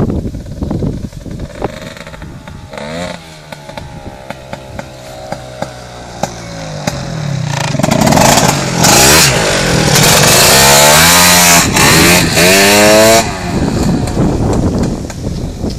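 Piaggio Zip scooter with a 180cc Malossi MHR two-stroke kit running at low revs, then revved hard several times, rising and falling in pitch, for about five seconds before dropping back near the end.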